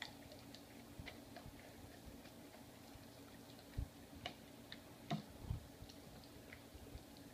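Faint, scattered clicks and smacks of a Bernese mountain dog eating sticky peanut butter off a spoon, with a few soft thumps, over a low steady hum.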